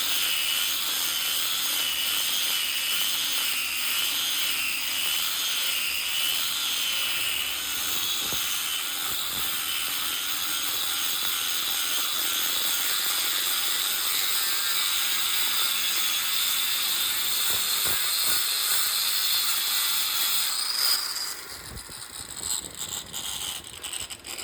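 Angle grinder with a ceramic-grain fibre disc grinding out steel spot welds: a steady high whine and grinding hiss, the pitch wavering as pressure on the disc changes. It stops about 21 seconds in.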